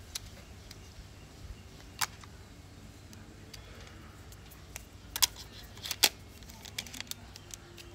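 Small sharp metallic clicks and clinks of a Soligor 50 mm f1.9 lens being fitted onto the lens mount of a Miranda Automex III camera body. A few isolated clicks, the loudest around five and six seconds in.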